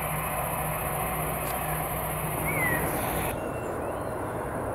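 Steady airport background rumble with a low hum. A single short bird chirp comes about halfway through. Near the end the background changes abruptly to a quieter outdoor ambience with faint bird calls.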